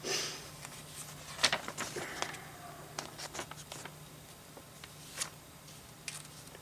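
Paper pages of a LEGO instruction booklet being flipped, rustling, with a few light ticks and clicks over a faint steady low hum.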